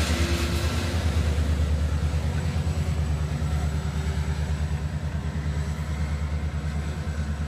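Metrolink diesel locomotive running as the train passes and pulls away: a steady low rumble with a fast, even pulsing beat.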